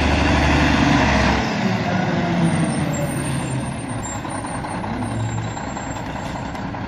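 Rear-loader garbage truck's diesel engine running, a steady rumble with a deep hum that drops away about a second and a half in.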